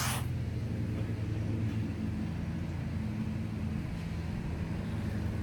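Steady low mechanical hum, like an idling engine or motor, with a few unchanging low tones. A burst of scraping cuts off right at the start.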